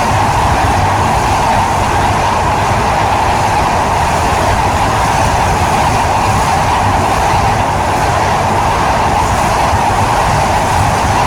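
Train running steadily along the track: a continuous loud rumble with a rushing hiss that does not change.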